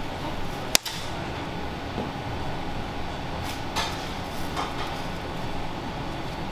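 Cling film crinkling now and then as a ball of fresh pasta dough wrapped in it is handled, over the steady rumble of a commercial kitchen's ventilation. A single sharp click sounds about a second in.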